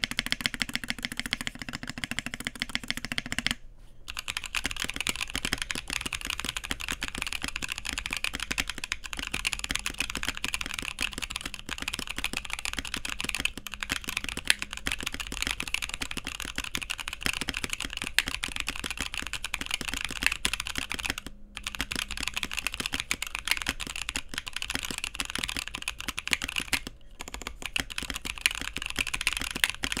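Continuous fast typing on a CannonKeys Bakeneko60, a cast-aluminium 60% custom mechanical keyboard with an O-ring gasket mount and PBT keycaps. For the first few seconds it has lubed and filmed Marshmallow switches, and after a short break stock Boba U4T tactile switches.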